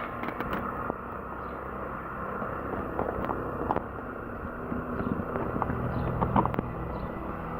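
Steady outdoor background noise with a low hum that swells about five seconds in, and a few light clicks.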